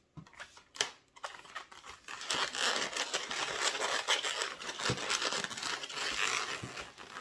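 Inflated latex modelling balloons (260s) handled and twisted into a rod handle: a few light knocks, then from about two seconds in a continuous, dense rubbing of latex against latex and hands.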